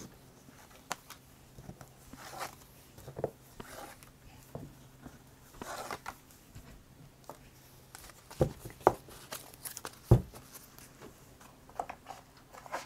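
Oracle cards being gathered up off a cloth-covered table and stacked: scattered slides, rustles and light clicks of card stock, with a few sharper taps between about eight and ten seconds in.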